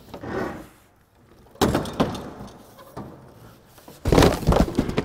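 Knocks and thuds of furniture being moved about indoors: a sharp knock about one and a half seconds in, then a louder cluster of thuds about four seconds in.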